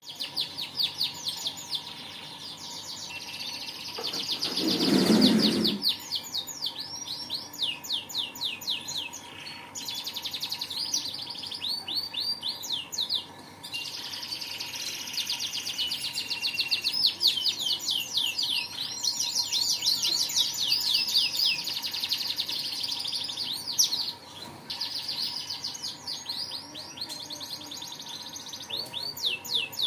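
Domestic canary singing steadily in long phrases of fast, high trills with short pauses between them. About four to six seconds in, a brief low rushing noise swells up and falls away under the song.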